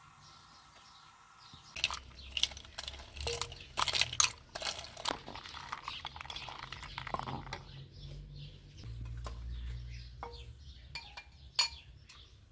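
Dishes and cutlery clinking and knocking: a run of sharp clinks, some with a brief ring, starting about two seconds in and thinning out toward the end.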